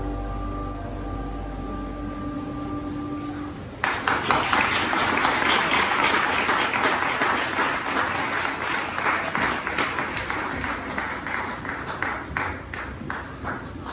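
The last held notes of a slow song, then a crowd breaks into applause about four seconds in, thinning to scattered claps near the end.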